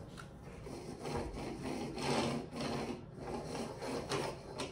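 Magnetic stud finder sliding and rubbing across a painted drywall wall in a series of short scraping strokes, as it is swept along to find the screws in a stud.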